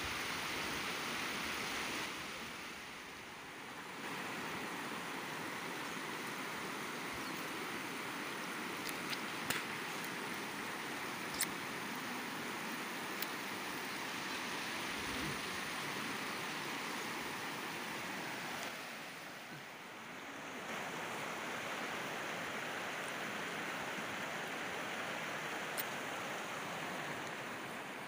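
Shallow rocky river rushing over boulders: a steady rush of water that dips twice for a second or two, with a few faint clicks.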